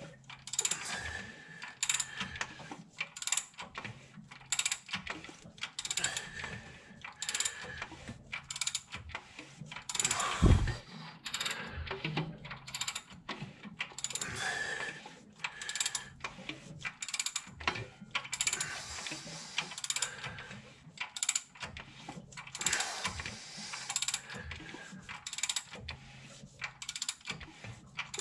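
Ratchet wrench clicking in repeated runs as the 6.4L HEMI V8 is turned over by hand, checking that every valve opens after the rocker arms are installed. A single heavy thump comes about ten seconds in.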